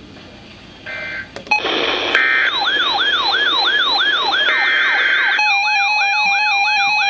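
Weather alert radios going off at once: short buzzy bursts of the SAME digital alert header, then a falling siren-like alarm wail repeating about three times a second from about two and a half seconds in. Just past five seconds a steady alert tone joins the wail. This is the start of a new warning.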